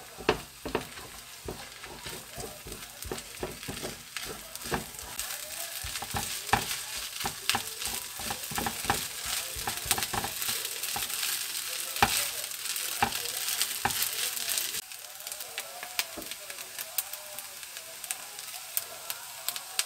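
Vegetable-and-egg fried rice sizzling in a nonstick frying pan while a silicone spatula stirs it, with frequent quick taps and scrapes against the pan as the egg is broken up and cooked through. The sizzling turns quieter about fifteen seconds in.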